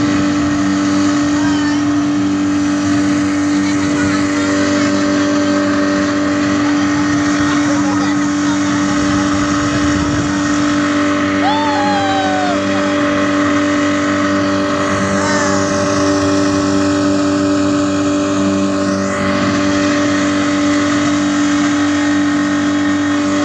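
Speedboat's outboard motor running at a steady speed under way, a constant drone over a rush of wind and water.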